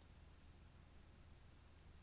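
Near silence: room tone with a faint steady low hum and hiss, and one faint click near the end.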